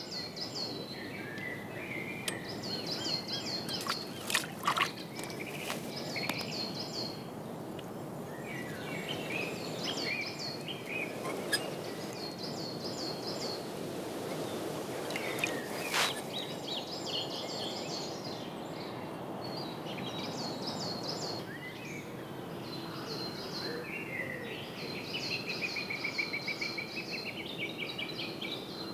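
Songbirds singing in repeated bursts of high, quick notes, with one long curving call about five seconds before the end, over a steady rushing background noise. A few short sharp knocks stand out about four, five and sixteen seconds in.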